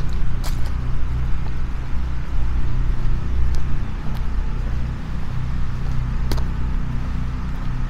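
A steady low rumble, with two sharp clicks: one about half a second in, one near the end.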